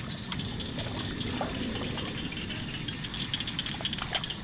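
Shallow muddy paddy water sloshing and trickling as hands grope in it, with scattered small clicks and splashes, thickest in the last second or so.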